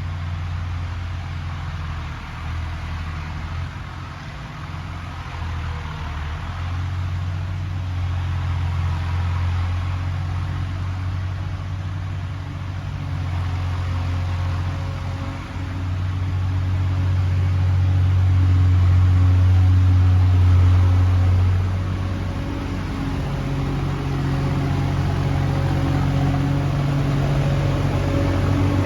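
John Deere 260 skid steer's diesel engine running steadily as the machine works, its level rising and falling, loudest for a few seconds past the middle.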